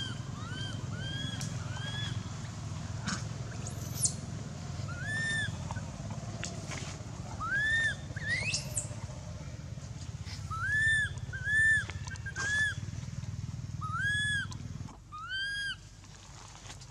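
Baby long-tailed macaque crying: a run of short, high-pitched, arched whimpering cries, repeated in groups, with one higher rising squeal about eight and a half seconds in. A steady low hum lies beneath and stops near the end.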